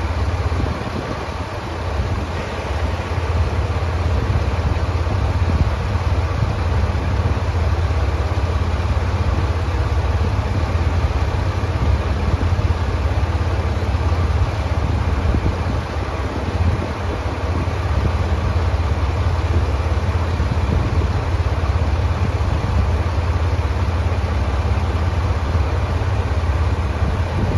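Diesel engine of a Tosa Kuroshio Railway TKT8000 series railcar running steadily with a deep, even hum.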